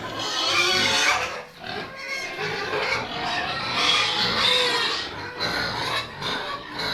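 Local-breed pigs squealing and grunting, a near-constant din that dips briefly about a second and a half in.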